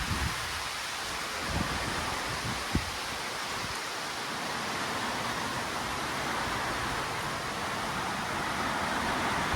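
Storm wind and rain making a steady rushing hiss, with a few brief low thumps of wind buffeting the microphone.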